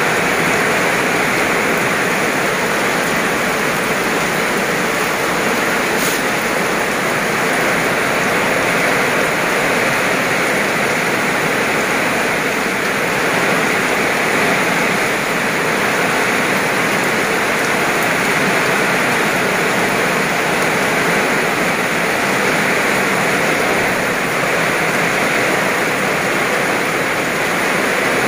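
Heavy rain pouring steadily onto wet asphalt and grass: a dense, even hiss that holds at the same level throughout.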